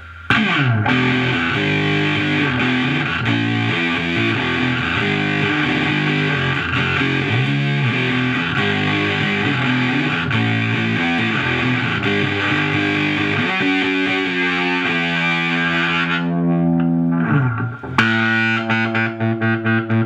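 Electric guitar played through a prototype Gee Fuzz pedal, a copy of the Earth Sound Research Graphic Fuzz, and a tube guitar amp: a busy run of fuzzed notes and chords, then a held chord that turns darker and fades. Near the end a new chord is struck and pulses rapidly. The pedal's filter is turned up with its dampener turned down to hold back the filter's self-oscillation.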